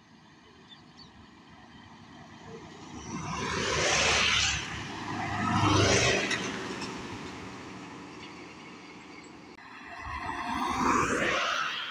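Road traffic passing close by on a highway, each vehicle's tyre and engine noise swelling and fading away: two passes in quick succession about four and six seconds in, the second a heavy goods lorry, then another vehicle passes near the end.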